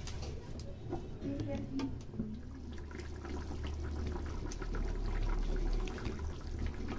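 Fish curry boiling in a metal kadai: irregular bubbling and popping over a steady low rumble.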